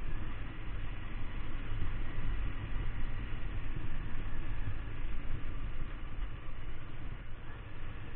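Wind rumbling on the microphone of a moving Kawasaki Ninja 250, with the motorcycle's engine running underneath.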